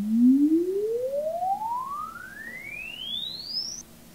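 Presonus R65 studio monitor, converted to passive with its L-pad turned all the way up, playing a sine-sweep test tone for a frequency-response measurement. One pure tone glides steadily up in pitch from low to high over nearly four seconds, loudest in its lower part, and cuts off suddenly near the end.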